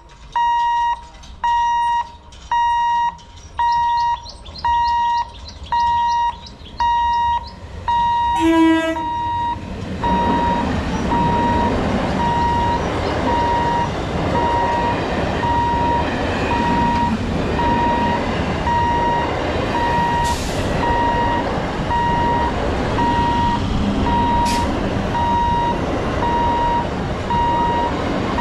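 Level-crossing warning beeper sounding about once a second, a high steady beep that goes on throughout. About eight seconds in a horn blasts briefly, then an electric multiple unit local train passes close by, its wheels rumbling steadily on the rails under the beeps, with two short hisses near the end.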